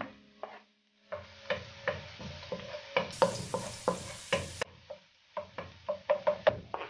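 Wooden spoon stirring minced garlic and ginger in hot oil in a nonstick pan: rapid taps and scrapes of the spoon against the pan over a light sizzle, pausing briefly twice.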